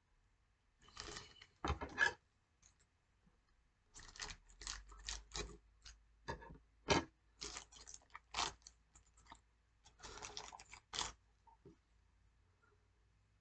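Irregular rustling, crinkling and scraping of packaging and small items being handled, in short uneven spells, with a couple of sharper knocks about two seconds and seven seconds in.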